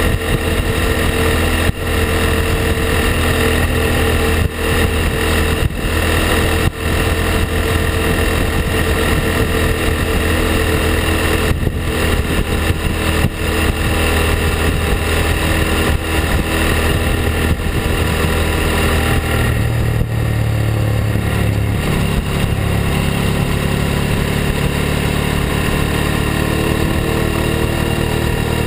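Ducati Hypermotard's L-twin engine and exhaust running under way, heard close-up from the rear fender with wind rush over it. The engine note shifts about two-thirds of the way in.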